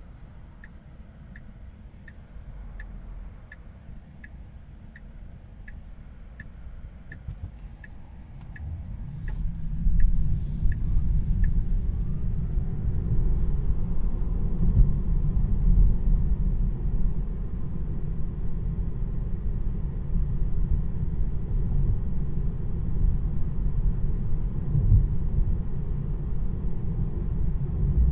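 Inside the cabin of a Tesla Model 3: the turn-signal indicator ticks evenly about twice a second and stops about eleven seconds in, while low tyre and road rumble swells from about nine seconds in as the electric car picks up speed, with no engine sound.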